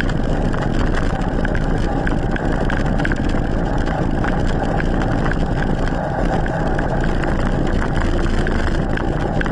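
Steady wind rushing over the microphone of a camera mounted on an e-mountain bike rolling along asphalt, with tyre rumble and small rattles from the bike.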